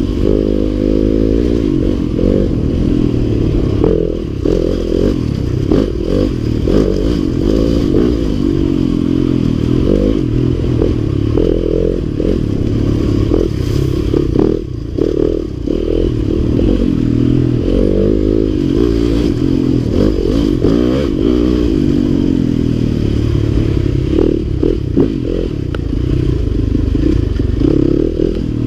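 Yamaha dirt bike engine revving up and down while being ridden over rough ground, heard muffled, with clatter and knocks from the bike over bumps. The throttle eases off briefly around halfway.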